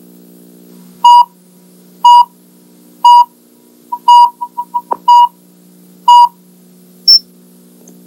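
Videotape countdown leader beeps: six short identical beeps, one a second, with a quick flurry of shorter blips between the fourth and fifth and one higher blip after the last, over a steady low electrical hum.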